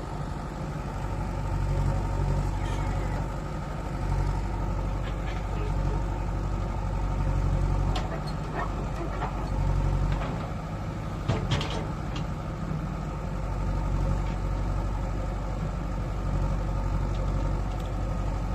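JCB 3DX backhoe loader's diesel engine running under working load, its note swelling and easing every couple of seconds, with a few sharp metallic knocks near the middle.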